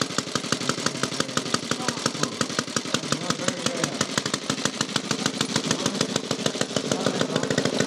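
Veteran 1912 Rudge 499cc single-cylinder engine idling on its stand, with a steady, rapid beat of exhaust pulses.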